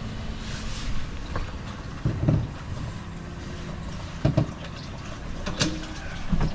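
Engine oil pouring from an opened drain valve on a DD15 diesel's oil pan into a catch pan, a steady low rush. A few short knocks come about two, four and five and a half seconds in.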